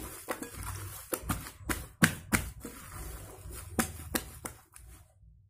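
Fluffy pink slime squished and kneaded by hand in a glass bowl, giving irregular sharp pops and squelches, about ten in all, that stop near the end.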